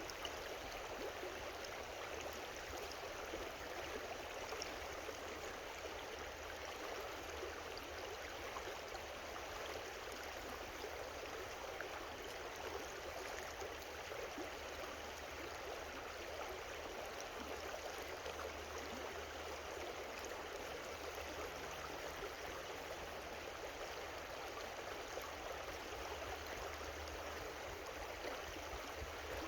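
Creek water running steadily over rocks, an even rushing and babbling.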